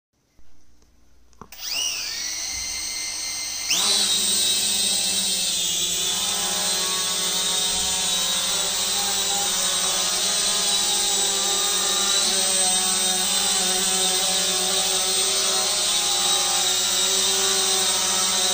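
Holy Stone HS120D quadcopter's four propeller motors spinning up with a quickly rising whine, then throttling up again about four seconds in as it lifts off the floor. From then on a steady, loud high-pitched propeller whine and buzz while it hovers.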